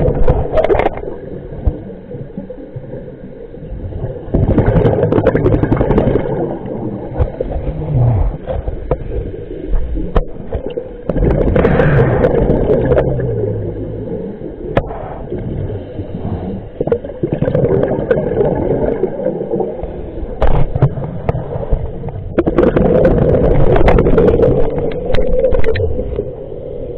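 Scuba regulator breathing heard underwater: loud gurgling bursts of exhaled bubbles every several seconds, with quieter stretches between, and a few sharp clicks.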